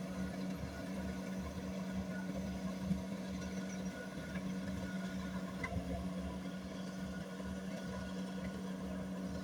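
Kubota rice combine harvester's diesel engine running steadily: a constant drone with a throbbing low end.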